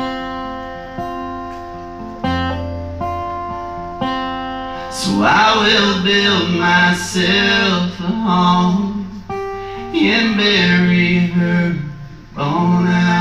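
Live music from two guitars, an acoustic guitar strummed with a second guitar, playing a passage of a folk song. Held notes ring through the first few seconds, then a louder lead melody comes in about five seconds in.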